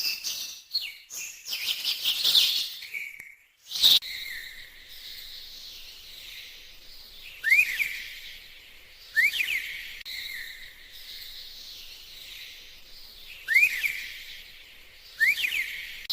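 Birds calling: a few seconds of busy chirping, then a short break. After that come four sharp, quick rising chirps, spaced a second and a half to four seconds apart, over a steady high hiss of background calls.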